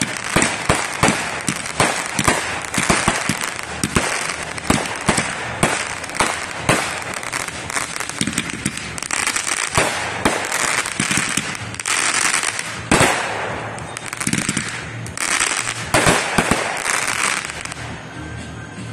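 Aerial fireworks going off in quick succession: a dense run of sharp bangs and pops, with spells of thick crackling from about nine seconds in, thinning out near the end.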